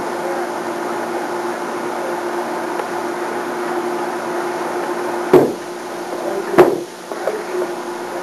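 Two loud knocks about a second and a half apart, the first about five seconds in, with a fainter one after, over a steady hum.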